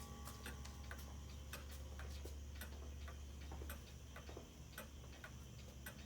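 Antique Black Forest quail cuckoo clock ticking steadily and faintly. The last of a struck, ringing tone fades out within the first second.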